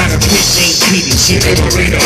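Loud live hip hop music with heavy bass, played over a concert PA.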